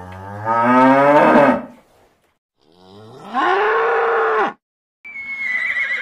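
A cow mooing, its pitch rising, then a bull bellowing: a second long call that rises and holds steady. About five seconds in, a horse starts to whinny with a high call that falls in pitch.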